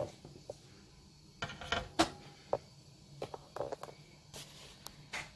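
Scattered light clicks and knocks of plastic DC circuit breakers being handled against a metal combiner box, the sharpest knock about two seconds in.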